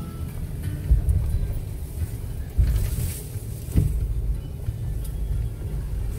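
Low rumble of wind buffeting the microphone at an open window of a Land Rover Discovery, with vehicle noise and a few sharp thumps about one, two and a half, and nearly four seconds in.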